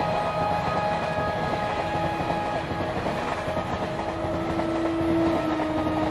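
A passenger train's coaches passing at speed close by: a steady noise of wheels running on the rails.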